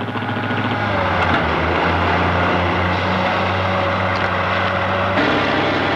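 Heavy diesel earthmoving plant running steadily with a low engine drone. About five seconds in the sound changes suddenly and the higher part drops away.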